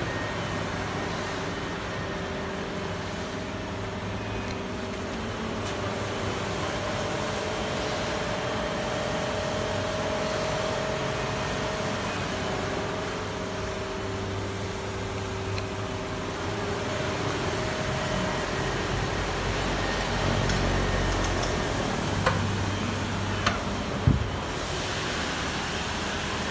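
Steady mechanical hum inside a car's cabin, with two faint steady tones over it and three sharp clicks near the end.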